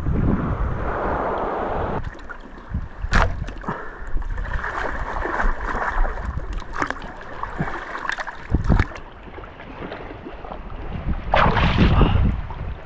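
Splashing of feet wading through shallow seawater, with wind buffeting the microphone. A few sharp knocks are scattered through it, and there is a louder splash near the end.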